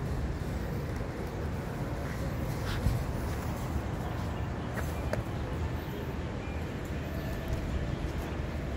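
A few sharp, separate clicks from the stiletto heels of leather thigh boots on a stone-tiled walkway, the loudest about three seconds in. Under them runs a steady low outdoor rumble.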